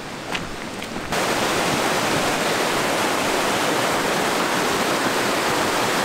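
Footsteps on a dirt road for about a second, then a sudden change to a mountain stream rushing over rocks: a loud, steady rush of water.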